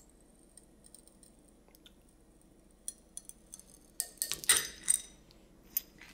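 Faint metallic clicks as pliers bend a TIG-welded 7075 aluminum plate clamped in a vise. About four seconds in comes a burst of sharp crackles and clinks as the weld joint fractures and the plate breaks off.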